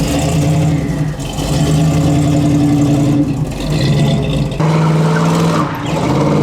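A 1984 Chevrolet El Camino's engine running loud through its exhaust, a steady deep note that rises and dips a little. Its tone changes abruptly about four and a half seconds in.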